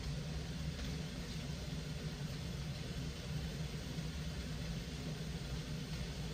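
Steady low mechanical hum with a faint even hiss, unchanging in level.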